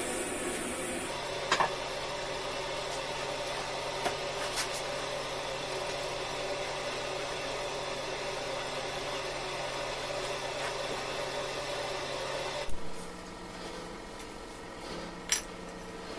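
Steady rasping of a tyre-repair buffing tool on rubber, with a few sharp clicks; the rasping stops abruptly about thirteen seconds in.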